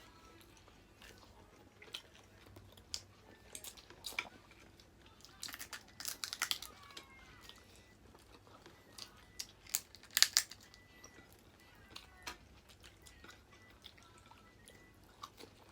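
Close-miked eating sounds: irregular crunches, clicks and chewing as seafood is bitten and chewed, loudest about six and ten seconds in.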